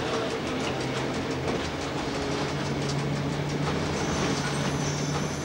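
Railcar running through a station yard, heard from the driver's cab: a steady motor hum over running noise, with faint clicks from the wheels. A thin high whine comes in about four seconds in.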